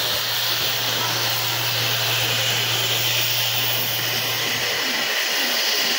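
Steady hiss from the historic train standing at the platform, with a low steady hum beneath it that stops about four and a half seconds in.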